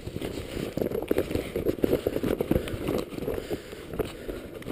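Footsteps crunching through dry grass and fallen leaves, an irregular run of short rustling crackles.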